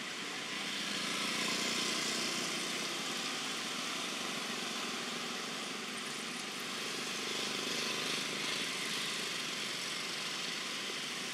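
Steady hiss of distant vehicle traffic, swelling slightly twice as vehicles pass.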